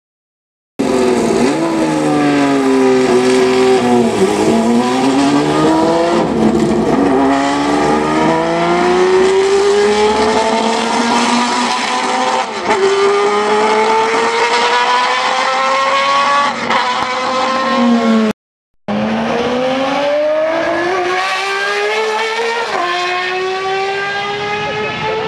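Matra MS670 sports-prototype's V12 racing engine at high revs, its pitch climbing through each gear and dropping at every gear change. About two-thirds of the way through the sound cuts out for half a second, then the V12 climbs again through another upshift.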